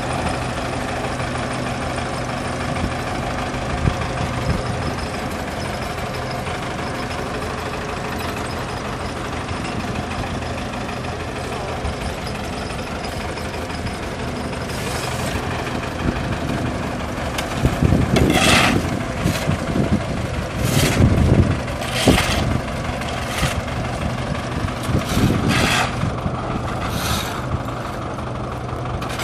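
Diesel engine of heavy road-works machinery running steadily. From about halfway in, several loud, rough scraping bursts rise over it, the loudest around 18 and 21 seconds in.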